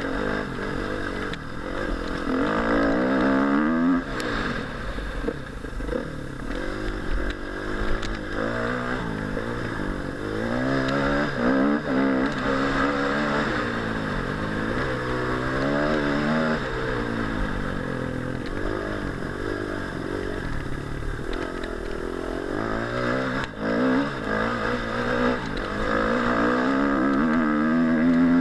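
Four-stroke single-cylinder engine of a 2013 Husqvarna TE 250 enduro bike through a Leovince X3 exhaust, ridden hard. It revs up and drops back again and again, its pitch climbing and falling with each throttle or gear change.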